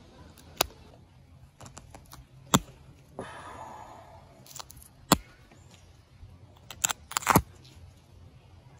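Copper-tipped pressure flaker pressing flakes off the dull working edge of a chert end scraper to resharpen it: a series of sharp clicks a second or two apart as flakes pop off, with a brief rustle about three seconds in.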